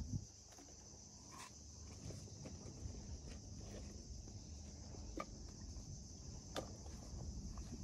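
Insects chirring in a steady high-pitched drone over a low rumble, with a few faint knocks, about three of them, during it.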